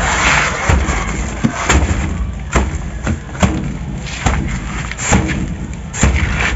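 Repeated dull thuds, about one a second, from a woven sack of dried seaweed being pressed and packed down by hand.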